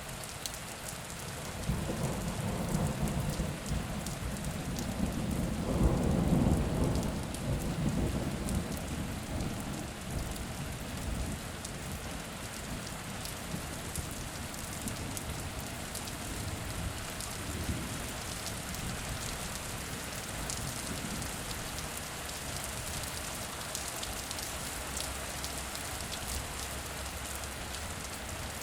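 Steady rain falling, with a long roll of thunder that swells about two seconds in, is loudest around six seconds, and dies away after about ten seconds into the steady hiss of rain.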